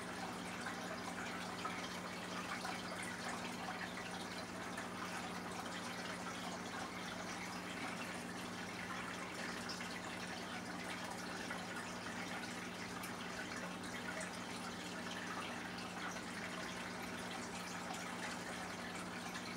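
Aquarium filter running: a steady trickle and splash of water falling into the tank, over a low, constant hum.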